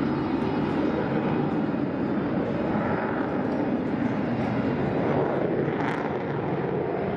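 F-16 fighter jet's engine noise as it flies overhead: a steady, deep rushing noise with no breaks. A brief click about six seconds in.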